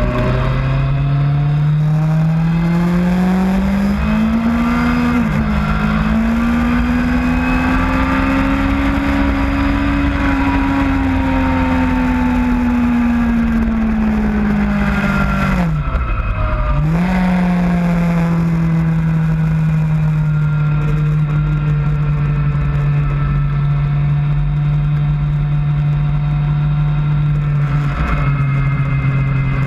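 Motorcycle engine heard from on board at track speed with wind noise. The pitch climbs over the first few seconds to a gear change about five seconds in, rises and falls slowly, drops sharply and picks straight back up about sixteen seconds in, then holds steady until a step down in pitch near the end.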